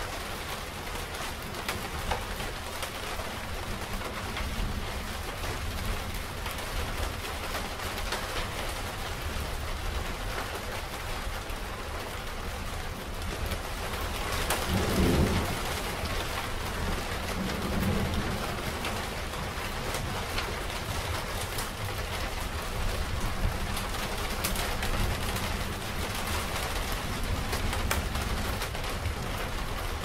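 Steady rain falling in a thunderstorm, with a low roll of thunder rumbling about halfway through and a smaller rumble just after.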